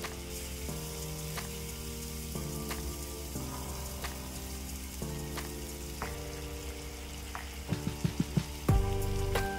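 Thick chilli sauce with fermented soybean paste sizzling in a non-stick wok while a silicone spatula stirs and scrapes it, with scattered clicks. A few sharper knocks near the end as seasoning is spooned in.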